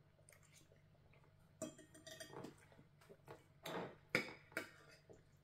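Knives and forks clinking and scraping on dinner plates as food is cut and eaten: a scatter of short clinks and brief scrapes, the sharpest clink about four seconds in.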